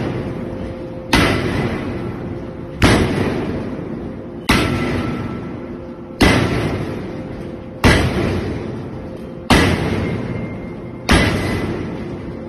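8-ton hydraulic forging hammer striking a red-hot 4.3-ton 42CrMo steel ingot in open-die forging: seven heavy blows about a second and a half apart, each ringing on and dying away before the next.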